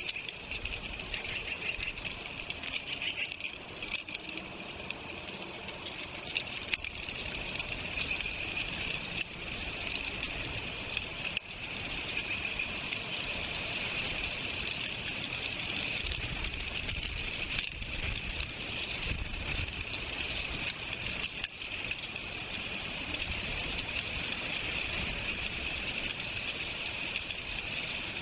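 Steady rushing of river water heard through an outdoor webcam microphone, a constant even hiss with some low rumble underneath.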